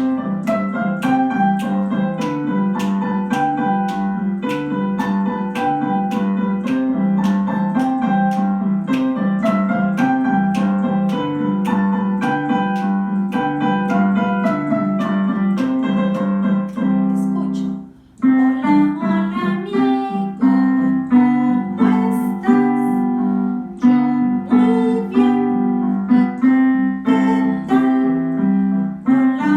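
Recorded keyboard music with a piano sound, playing a simple children's song accompaniment with steady notes. About eighteen seconds in it stops briefly, then starts again with sharper, more accented notes on a regular beat.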